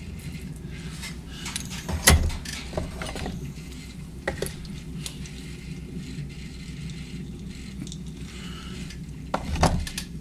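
Small potter's hand tools being handled and set down, giving a few sharp knocks and light clinks, the loudest about two seconds in and again near the end, over a steady low hum.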